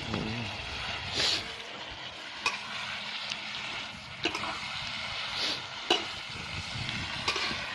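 Pork and holy basil stir-fry sizzling in a hot pan while it is stirred, with several sharp clicks of the utensil against the pan and a couple of louder scraping swells.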